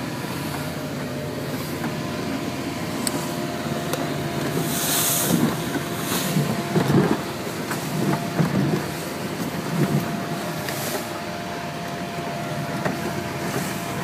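Engine of a 26-foot Tollycraft cruiser running steadily under way in rough water, heard from the helm. Several splashes of spray and waves hit the hull and windshield between about five and eleven seconds in.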